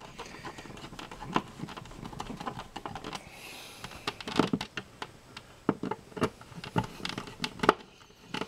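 Hand screwdriver tightening the mounting screws of a plastic electrical box into drywall: irregular clicks and ticks of the screwdriver and plastic, louder and more frequent in the second half.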